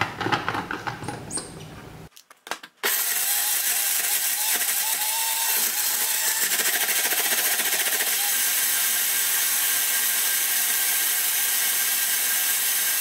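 A single-serve blender, started about three seconds in, running steadily as it grinds soaked dried chilies, onions, garlic, dried shrimp and water into a wet spice paste. Before it starts, the plastic cup clatters as it is fitted onto the base.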